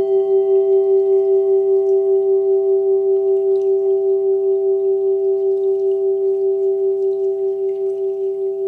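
Meditation bell ringing on after being struck, a steady pure tone with fainter higher overtones and a slow wavering pulse about three times a second, fading gradually.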